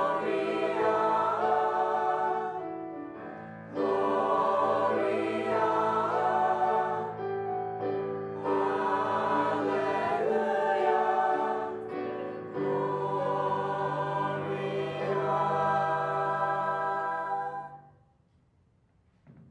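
Mixed-voice choir singing a slow carol in long held phrases, with low voices sustaining notes beneath. The final chord ends near the end, leaving near silence.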